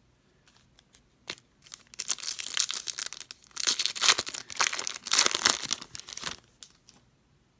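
Foil trading-card pack wrapper being torn open and crinkled in the hands. There is a single click, then several seconds of dense crackling and tearing, loudest in the middle, before it stops.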